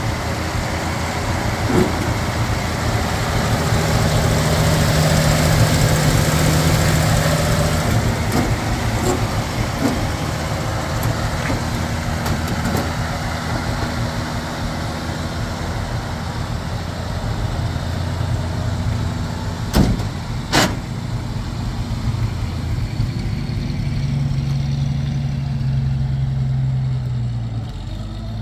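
1946 Chevrolet pickup's Stovebolt 235 inline-six idling, swelling a little for a few seconds early on. Two sharp knocks come about two-thirds of the way through, then the engine pulls the truck away near the end.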